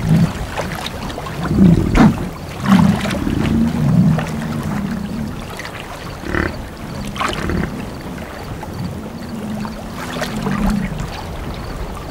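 American bison giving irregular low grunting calls, with water sloshing as they wade through a shallow pond.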